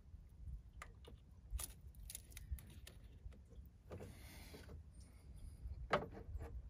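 Scattered light clicks and metallic clinks of hand work on a 2015 Chevy Tahoe's coolant temperature sensor and its plastic connector, with tools being handled. There is a short rustle about four seconds in and a louder clink near the end, all over a low steady rumble.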